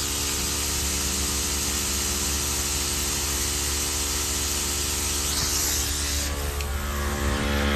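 Steady mechanical hum with a hiss over it that stops about six seconds in.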